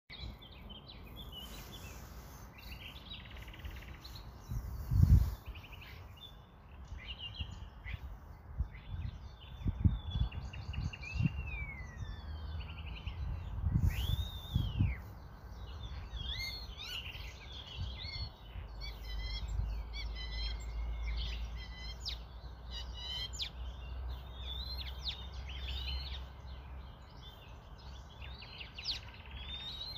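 Small birds chirping and singing throughout: many short chirps and rising and falling whistles. A few dull low thumps are also heard, the loudest about five seconds in.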